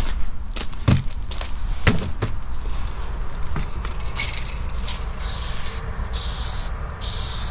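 Aerosol spray-paint can hissing in repeated short bursts of about half a second each, starting about four seconds in. Before that, scattered clicks and knocks, over a steady low rumble.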